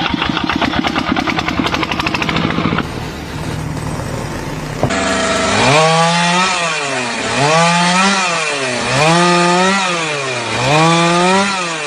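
An engine revving up and falling back again and again, four times in the second half, each rise about a second and a half long. Before it comes a fast, even mechanical pulsing.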